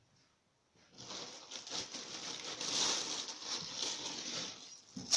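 Crinkling and rustling of packaging being handled, starting about a second in and lasting about four seconds, with irregular small crackles.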